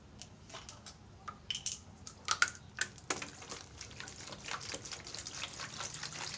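A few sharp clinks and knocks, then about three seconds in a kitchen tap starts running, with water splashing steadily into the sink.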